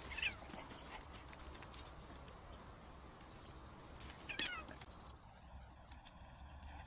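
A cat giving two short, faint meows with a falling pitch, one at the start and one about four and a half seconds in, among a few light clicks.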